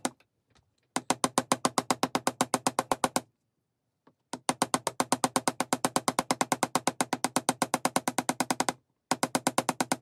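Chasing hammer rapidly tapping 18-gauge dead soft wire on a steel bench block, about ten light strikes a second, each ringing briefly off the steel. The strikes flatten the curves of a wire S clasp to give it a hammered finish. They come in three runs, with short pauses about three seconds in and near nine seconds.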